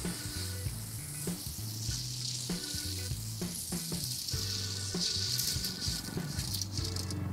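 Dry roasted grains and curry leaves pouring off a stainless steel tray onto a pile of roasted rice, a steady rustling hiss, over background music.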